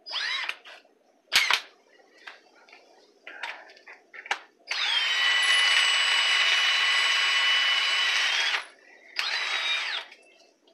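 Cordless impact wrench spinning up in short runs: a brief whir at the start, a sharp knock, a steady run of about four seconds in the middle, then another short burst near the end, with its motor pitch gliding as it speeds up and slows down.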